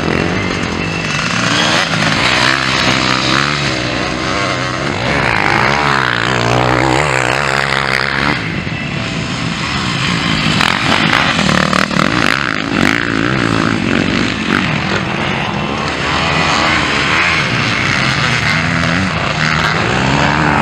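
Several motocross bike engines, among them a two-stroke Honda, revving hard as the bikes race past. The pitch climbs and drops again and again with each throttle change.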